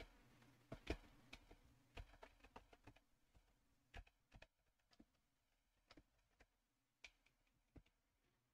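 Faint computer keyboard typing: irregular single keystroke clicks, closer together in the first few seconds, then spaced out.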